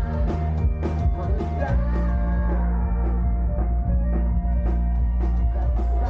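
Live band music from an outdoor stage: drums, a held bass line and guitar chords. About two seconds in the drum hits thin out, leaving the sustained bass and chords.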